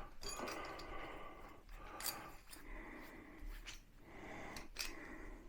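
Faint, repeated scraping strokes, roughly one a second, with a few light clicks: a freshly drilled hole in wood being reamed out.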